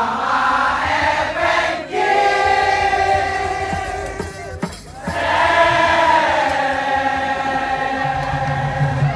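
Madurese tong-tong ensemble music: a melody in long held notes that bend slightly in pitch, breaking off briefly twice, over low percussion.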